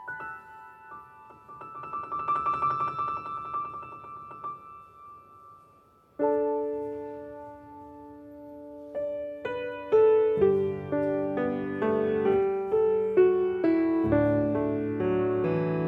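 Solo piano playing: a quick, high repeated-note passage dies away. About six seconds in, a new phrase opens with a held chord, and bass notes join around ten seconds in as the playing grows fuller.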